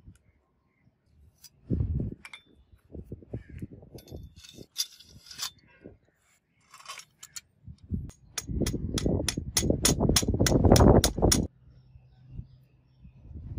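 Sword hilt parts being fitted by hand: brass guard and metal knocking and rubbing together. The loudest stretch, about 8 to 11 seconds in, carries a run of sharp clicks about three a second.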